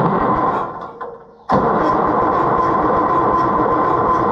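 Electric starter cranking an Oliver 1655 tractor's six-cylinder engine, which has its valve cover off and a dead cylinder five with no compression. A short burst of cranking of about a second, then, after a brief pause, a longer steady crank with a whining starter.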